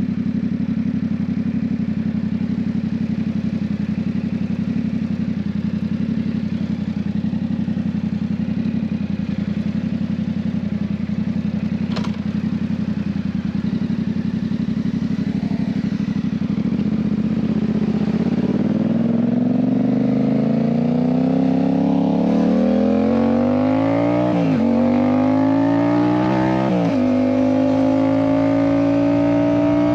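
Yamaha MT-07's parallel-twin engine through its Ixil aftermarket exhaust, heard from the rider's seat. It runs at a steady low pitch, with a single short click partway through, then accelerates with rising pitch. Near the end it shifts up three times, the pitch dropping at each change.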